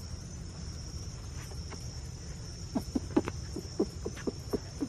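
Night insect chorus of crickets, a steady high buzz. In the second half it is overlaid by a quick, uneven run of about ten short, low clucks, the loudest sounds here.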